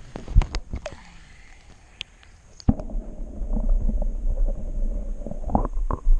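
Water handling and knocks as a hand and camera go into pond water. About three seconds in, the sound turns suddenly to a loud, muffled, low churning noise with small knocks: the camera's microphone submerged in the water during an underwater fish release.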